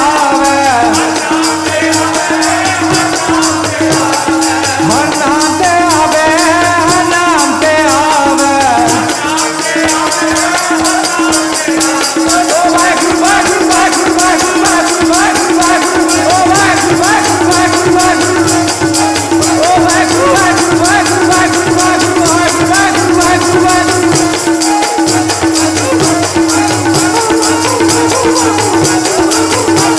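Sikh keertan: singing over a harmonium holding a steady note, with rattling percussion keeping a fast, even beat.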